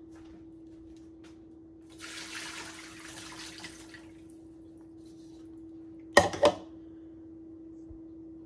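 Water running into a kitchen sink for about two seconds as a bowl of thawing fish is emptied, then two sharp knocks of the ceramic bowl being set down on the stone countertop. A steady low hum runs underneath.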